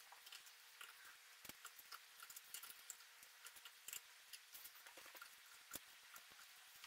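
Faint, scattered clicks of clothes hangers being hooked onto a closet rod as clothes are hung, the sharpest about a second and a half, four seconds and nearly six seconds in.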